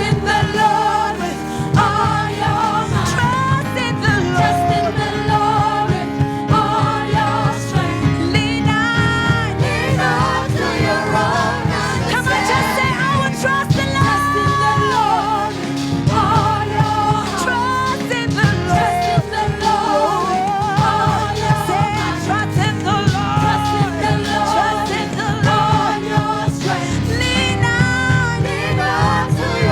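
Live gospel worship music: a band plays while singers lead a praise song.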